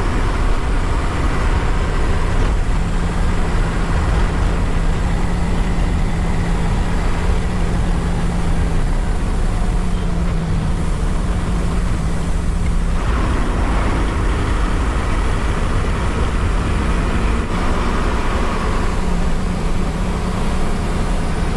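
Diesel engine of a long-distance bus running under way, with road and tyre noise, heard from the driver's cab; a steady hum and rumble that grows a little brighter past halfway.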